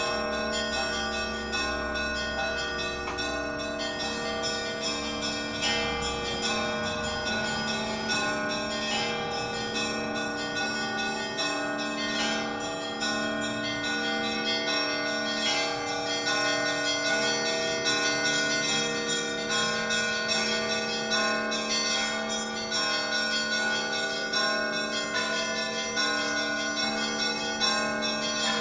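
Orthodox cathedral bells rung together in a continuous peal: quick repeated strikes on the smaller bells over the sustained ringing of larger ones. A deep low bell tone dies away about six seconds in.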